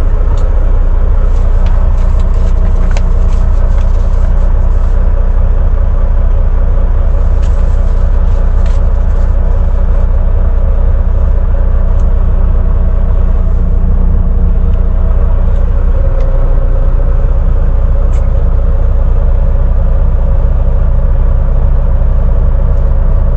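Semi-truck's diesel engine running at low speed, heard from inside the cab as a steady low rumble; its note shifts about two-thirds of the way through. A few light clicks in the first few seconds.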